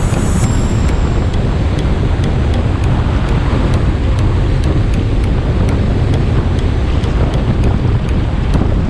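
Steady low roar of a vehicle on the move, with wind buffeting the microphone.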